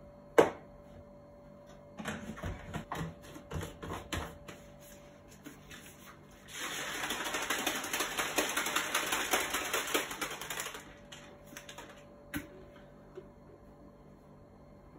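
Plastic protein shaker bottle with whey powder: a sharp click, a few seconds of irregular knocks and taps as powder is scooped in, then about four seconds of fast rattling as the shaker is shaken to mix the shake, and a single click near the end.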